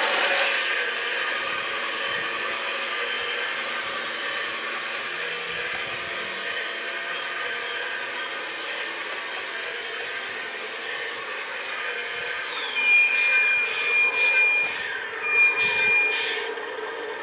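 Radio-controlled model truck driving, with a steady mechanical hum. About 13 seconds in, two long, steady high beeps sound with falling sweeps, and these are the loudest part.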